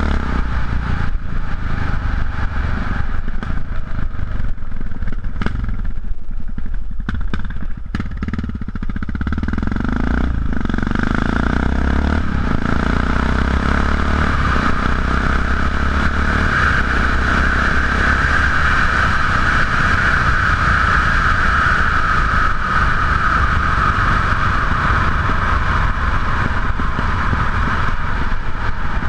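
Yamaha XT660X's 660 cc single-cylinder engine running through aftermarket Leo Vince exhausts as the bike is ridden. For the first several seconds loose gravel clatters under the tyres; after a short dip about nine seconds in, the engine picks up and runs steadily and louder on smooth road.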